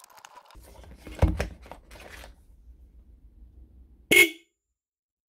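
A pair of electric disc car horns, high note and low note, sounded together from a battery: one short dual-note blast about four seconds in that cuts off suddenly. Before it, clicks and rattles of the wires being touched to the battery terminals.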